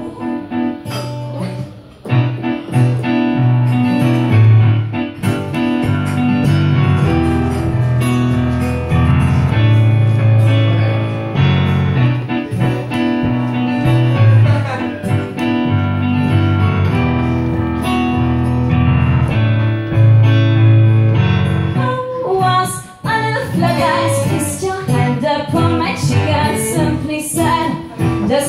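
A woman singing a song, accompanied by digital piano chords and acoustic guitar. About three-quarters of the way through, the low sustained chords drop away and the accompaniment turns sparser.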